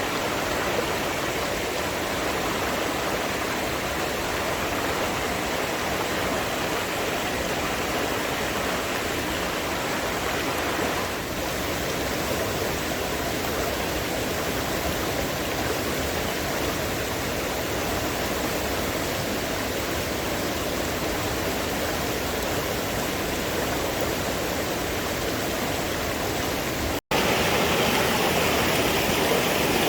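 Stream water rushing steadily over rocks. Near the end it cuts out for an instant and comes back a little louder.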